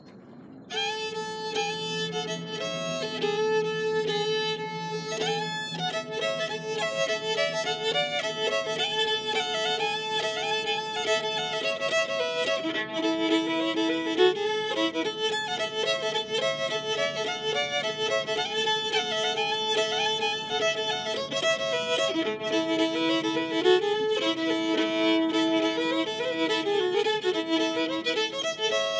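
Solo fiddle bowed, playing a tune that starts about a second in, with several notes often sounding together.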